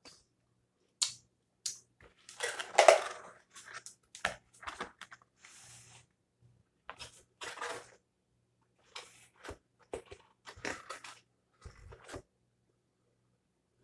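Close-up eating noises, crunching and chewing on a bite of pizza, mixed with the cardboard pizza box being handled, in irregular short bursts that are loudest about three seconds in. Near the end the box lid is brought down with a dull thud.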